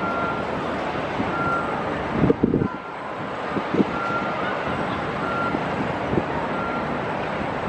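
Vehicle reversing alarm beeping evenly, about once every 1.3 seconds, over steady city background noise. A few loud knocks come about two and a half seconds in, with smaller ones later.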